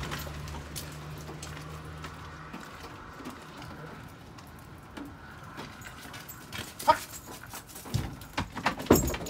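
A dog makes small sounds inside a van's wire dog cage, with several sharp knocks and clatters about seven to nine seconds in. A low hum stops about two and a half seconds in.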